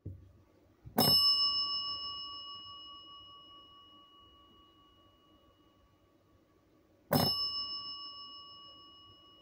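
Chrome desk service bell struck twice by a solenoid hammer, about six seconds apart. Each strike rings out with a clear metallic ding that fades slowly. A faint click comes just before the first strike. The bell is sounding a terminal's BELL alert.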